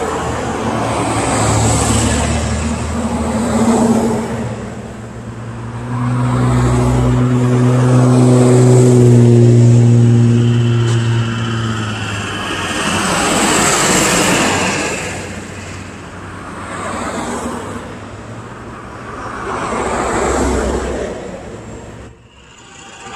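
Road traffic driving past, several vehicles one after another, the sound swelling and fading every few seconds. A heavy engine's low, steady drone is the loudest thing from about six to twelve seconds in.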